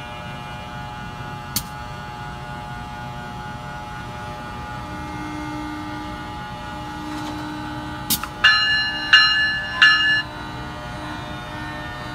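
NJ Transit ALP-46 electric locomotive standing at the platform, its electrical equipment and blowers giving off a steady hum with a few single clicks. Near the end a bell rings three strokes, about two-thirds of a second apart.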